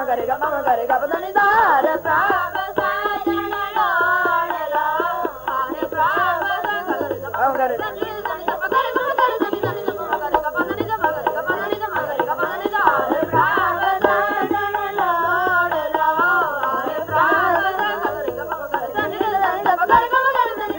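Sikh kirtan: boys' voices singing a devotional hymn, accompanied by harmonium and tabla.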